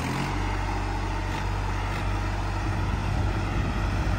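Swaraj 963 FE 4WD tractor's three-cylinder diesel engine running at full throttle under heavy load, pulling a three-bottom plough in high second gear. It makes a steady low drone.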